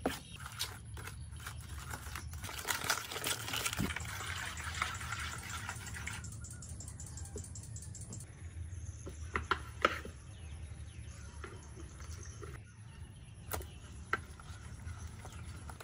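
A hand squishing and sloshing flour, egg and liquid into batter in a metal tray, busy for the first six seconds or so. After that it goes quieter, with a few light taps and splashes as long eggplant slices are laid into the batter.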